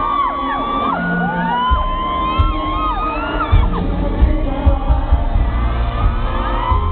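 Concert music with a heavy low beat played through a PA, under a crowd of fans screaming in many long, overlapping high-pitched shrieks.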